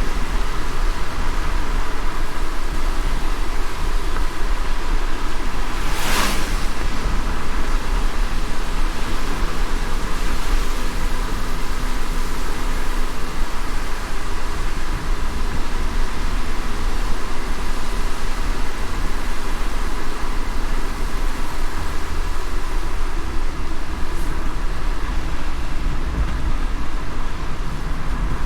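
A car driving in the rain: a steady low rumble of engine and tyres on the wet road under a constant hiss of rain. A brief sharp swish comes about six seconds in, and a fainter one near the end.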